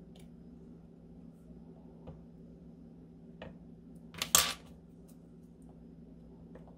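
Metal clay-sculpting tools handled on a wooden tabletop: a few faint clicks, then a short, louder clatter a little after four seconds in as a tool is picked up, over a low steady hum.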